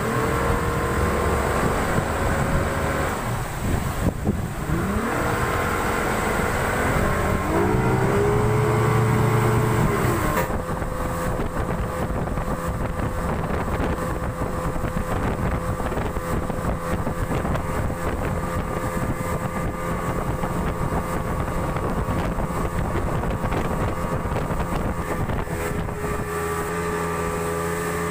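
Yamaha 200 outboard motor running under way. Its pitch rises and falls through the first ten seconds, then holds one steady note at cruising speed.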